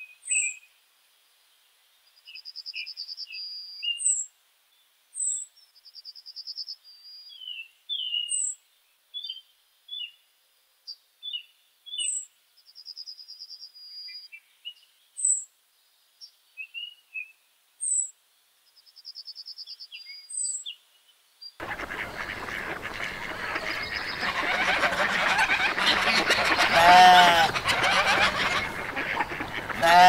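Meadow birds calling on a silent background: thin, high, falling notes, buzzy trills every few seconds and scattered short chirps. About 22 s in, a farmyard ambience begins: a steady noise bed with loud drawn-out animal calls around 27 s and again at the end.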